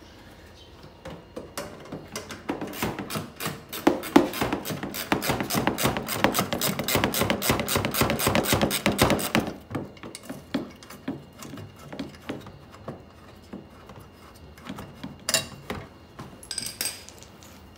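Hand ratchet clicking rapidly for several seconds as it undoes a bolt holding the bumper cover to the fender of a Nissan Murano, followed by scattered clicks and a couple of sharper knocks near the end.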